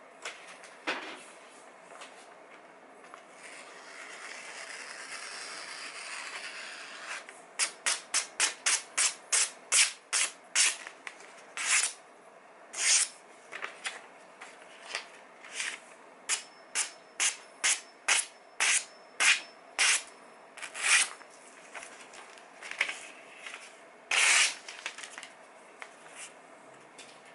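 Freshly sharpened kitchen knife slicing through a sheet of printed paper to test the edge: a run of short, sharp hissing strokes, about two a second at first, then more spaced out. Before the strokes there are a few seconds of steadier paper rustling.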